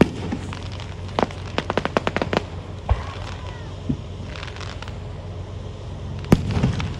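Fireworks display going off: a bang at the start, a quick run of about ten sharp crackling reports between one and two and a half seconds in, a low boom near three seconds, and the loudest bang near the end, with a short echoing tail after it.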